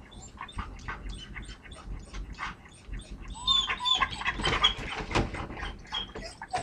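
A yellow Labrador puppy panting rapidly, about four breaths a second. Halfway through there is a brief pitched whine, then a louder stretch of rustling and knocking as the dog gets up inside its wire crate.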